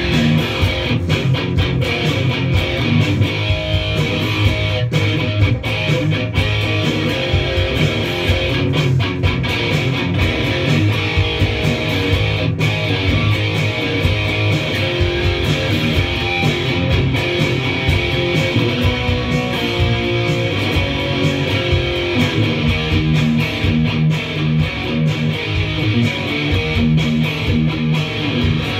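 Heavy metal song on a Les Paul-style electric guitar, riffs strummed and picked loud and without a break.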